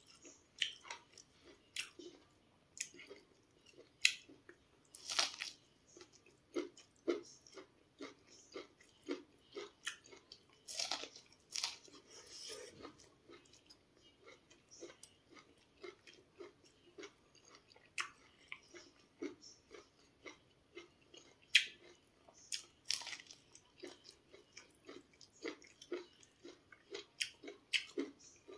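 Close-miked chewing and biting of cooked sweet corn on the cob: a steady run of soft crunches, roughly one or two a second. Sharper, louder bites come every few seconds.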